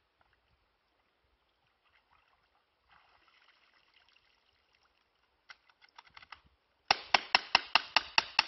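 Grand Power X-Calibur CO2 blowback airsoft pistol, still wet from being submerged in creek water, firing a rapid string of about eight sharp shots in the last second and a half, about five a second. Faint splashing about three seconds in and a few light clicks shortly before the shots.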